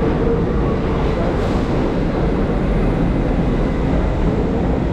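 Steady, loud rumble of a subway train running on a nearby track in the station.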